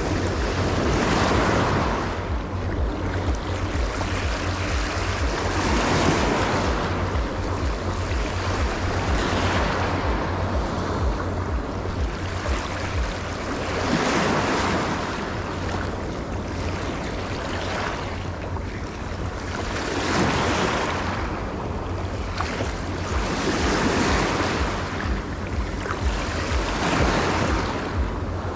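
Sea waves breaking and washing on the shore, swelling every four to six seconds, with wind rumbling on the microphone.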